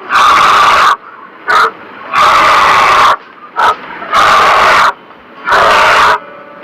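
Bear growling in a run of harsh, breathy calls: four of under a second each, with two short grunts between them.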